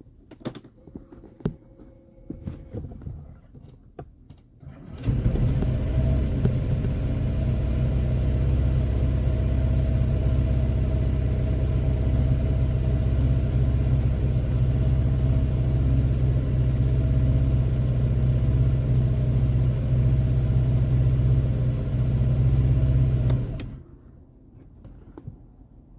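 Honda PCX 125 scooter's engine being turned over by its starter for about eighteen seconds without catching, then cut off abruptly: the engine will not start. A few clicks come before it.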